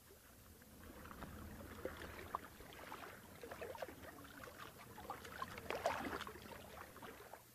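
Faint water lapping and trickling, with many small irregular splashes.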